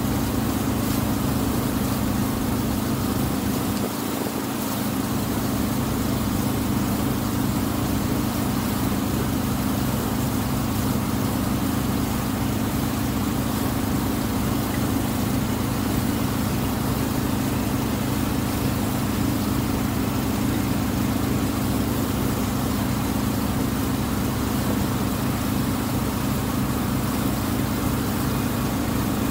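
The Tuula II water bus's engine running with a steady low drone.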